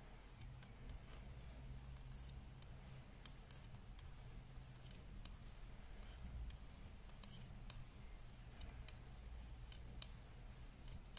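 Faint, irregular clicking of 5 mm Knit Pro metal knitting needles as a row of knit stitches is worked.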